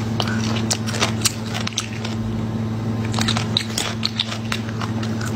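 A small child chewing food close to the microphone, with frequent crunching and wet mouth clicks over a steady low hum.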